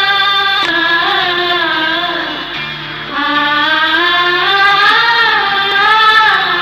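Sad ringtone music: a slow sung melody over instrumental backing. It softens briefly a little past two seconds, then comes back full just after three seconds.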